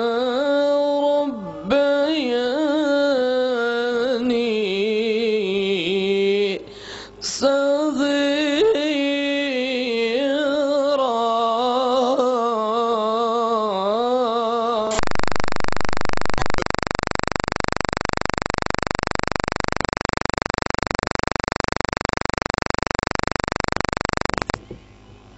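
A man's voice chanting melodically into a microphone, with wavering, drawn-out notes, a Qur'an reciter's style of recitation. About fifteen seconds in, the voice gives way to a loud, steady hiss of static, a recording fault, which cuts off shortly before the end.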